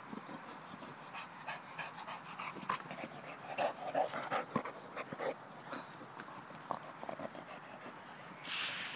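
Bulldog chewing a tennis ball: irregular wet chewing clicks and squelches, mixed with panting breaths, busiest around the middle. A short rush of noise comes near the end.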